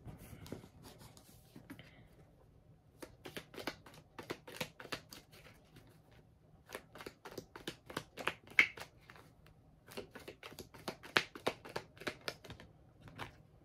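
Tarot cards being shuffled by hand: quiet bursts of quick, crisp clicks and flicks, in about three runs separated by short pauses.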